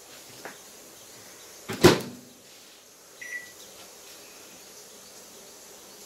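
A microwave oven's touch keypad being pressed to set the cooking time, with one short beep just after three seconds in. A loud thump comes about two seconds in, the loudest sound here, with a few faint clicks around it.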